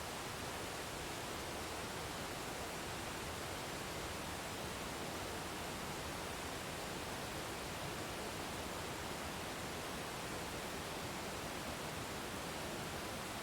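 Waterfall rushing, a steady even roar of falling water with no change in level.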